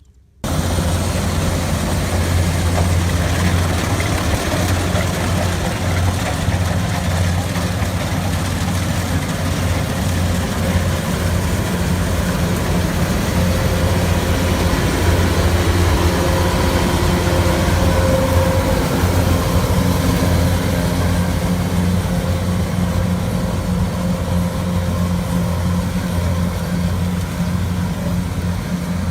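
Engine of a rice harvesting machine running steadily with a low hum, cutting in abruptly just after the start.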